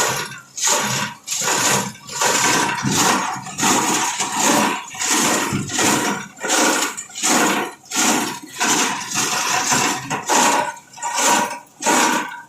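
Plastic scrap grinder chopping scrap plastic, a harsh crunching rush that surges and falls away in a regular rhythm, about one and a half to two surges a second.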